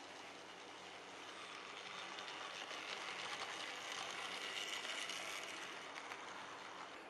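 Model train running past on its track: the wheels rattle and click over the rails, growing louder as the locomotive and coach go by close, then fading away.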